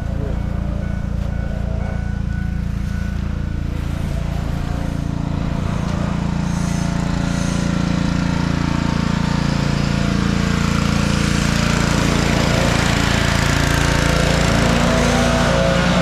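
An engine running steadily, with a rising hiss building from about six seconds in as it gets slightly louder.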